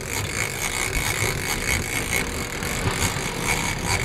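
Fishing boat's engine running steadily, with wash and wind noise.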